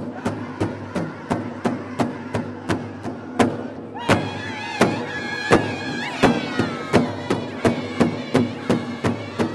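Powwow drum group singing over a large shared powwow drum, struck by several drummers together in a steady beat of about three strokes a second. About four seconds in, high women's voices join the men's singing.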